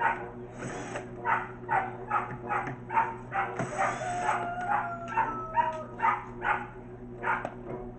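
A dog barking over and over, about two barks a second. Under it a cordless drill runs in two short bursts, about half a second in and again around four seconds in, backing out the screws of a speaker box.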